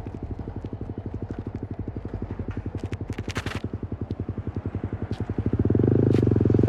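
Yamaha R15 V3's single-cylinder four-stroke engine running through an Akrapovič replica exhaust with a custom bend pipe, idling with an even pulsing beat. About five and a half seconds in it is revved up and held at a louder, higher note.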